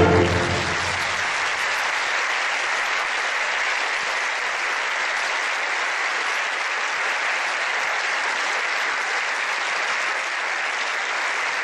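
Theatre audience applauding steadily as the last of the music dies away in the first second.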